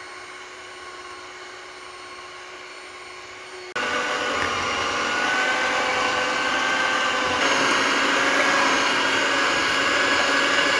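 Electric hand mixer running steadily, its beaters whipping a thick, half-frozen oat ice cream base; it becomes much louder about four seconds in.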